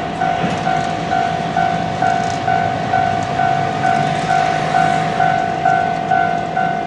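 Railroad level-crossing warning bell ringing its repeated single-note ding about twice a second, over a steady rumble of traffic on the crossing.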